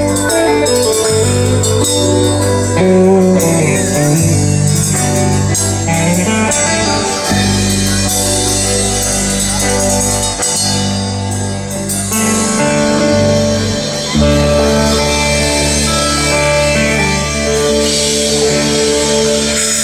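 Guitar-led rock music played by a band, with a steady bass line under it.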